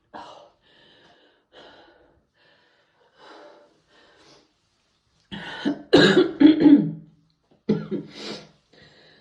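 A person coughing and clearing their throat several times, loudest in a quick run of coughs a little past halfway.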